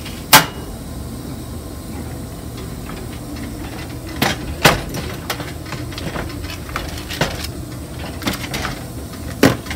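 Metal spoon knocking against a stainless steel pot while stirring thick mashed potatoes: one sharp clink just after the start, then several scattered knocks in the second half, over a steady low hum.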